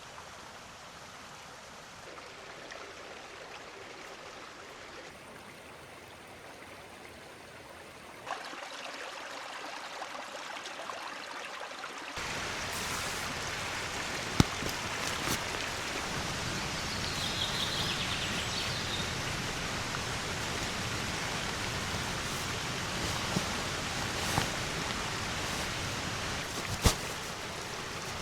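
Steady rushing water, jumping louder a third of the way in and again near the middle, with a few sharp clicks and knocks on top.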